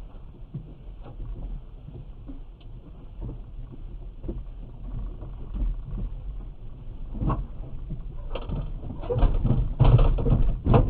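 Irregular knocks and bangs against the car's front end over the steady low rumble of the idling car. The knocks grow louder and closer together near the end.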